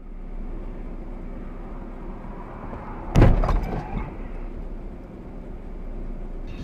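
Steady road and engine noise of a moving car, then a sudden loud crash impact about three seconds in, followed by a few smaller knocks and rattles.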